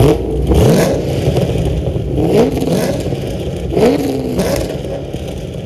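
Chevrolet Camaro Z28 7.0-litre LS7 V8 exhausts running, with about six quick throttle blips, each a short rising rev over the rumble. The blips are loudest at the start and ease off toward the end.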